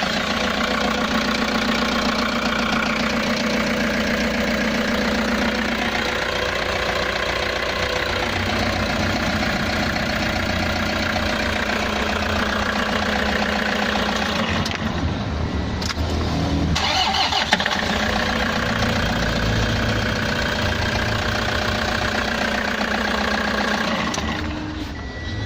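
Toyota HiAce van engine started by bridging the starter relay terminals, running steadily; it drops briefly about 15 seconds in and picks up again. That the engine runs with the relay bypassed points to broken wiring rather than a faulty relay.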